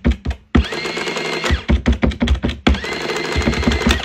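Printing calculator running: keys clicking and the print mechanism clattering fast as the paper tape feeds out, with a motor whine that rises and then holds steady in runs of about a second.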